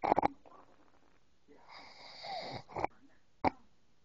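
A sleeping man snoring: a short, sharp snort right at the start, then a long wheezy breath about halfway through with a brief rise in pitch, and a single sharp click near the end.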